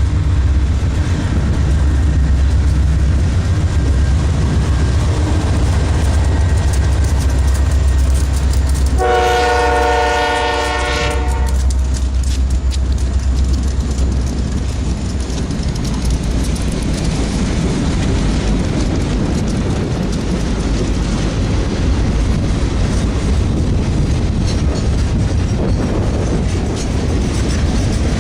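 Freight train passing: heavy diesel locomotive rumble, one horn blast about two and a half seconds long some nine seconds in, then the steady clatter of railcars rolling by.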